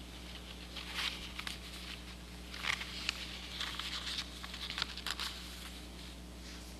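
Scattered soft rustles and light clicks of paper pages being handled at a lectern microphone, over a steady low electrical hum.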